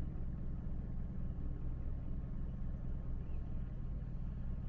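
A steady low rumble with no clear events in it.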